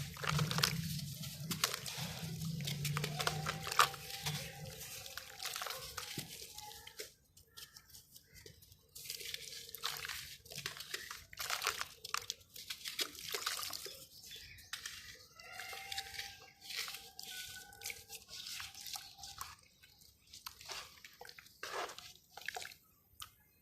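Dry dirt and sand-cement lumps crumbling into water: irregular crackling, crunching and dripping, with a short lull partway through.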